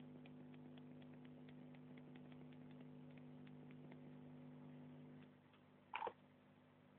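Near silence: a steady low hum with faint scattered ticks, the hum dropping away about five seconds in, then one short louder noise about six seconds in.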